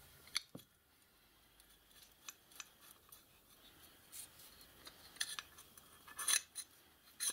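Light metallic clicks and short scrapes as a small steel tool-holder block and its slotted plate are handled and shifted against each other. The sharpest click comes about half a second in, with a few more scrapes near the end.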